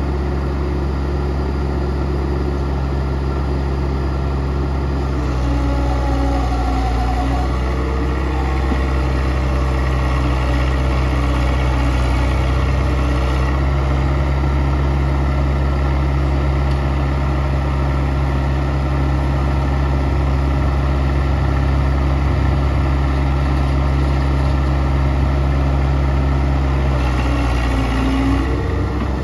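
Diesel engine of a Kobelco SK100-1 hydraulic excavator running steadily while it works. The engine note shifts slightly about five seconds in and dips and recovers briefly near the end.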